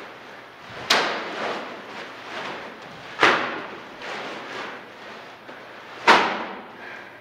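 Heavy plastic trash bags full of clay slammed onto a hard floor three times, each hit a sharp thud with a short echo, with plastic rustling between the hits.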